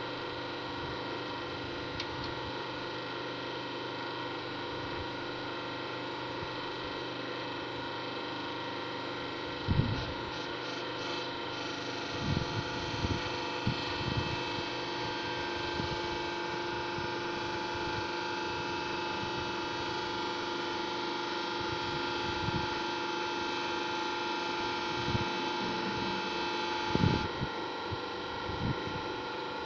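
Steady machine hum with several steady tones running together, broken by a few knocks and thumps, the loudest about ten seconds in and near the end.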